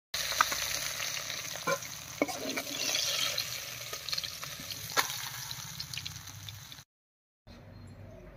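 Pabda fish frying in hot mustard oil in a kadai: a steady sizzle with scattered sharp clicks of a metal spatula against the pan and fish. It cuts off suddenly about seven seconds in, leaving only faint background sound.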